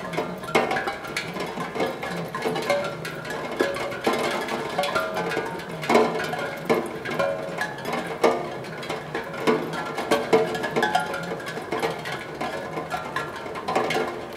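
Raindrops falling on a steel tongue drum, striking its tuned tongues at random. The result is a continuous scatter of short ringing notes at many pitches, mixed with the ticks of drops hitting the metal.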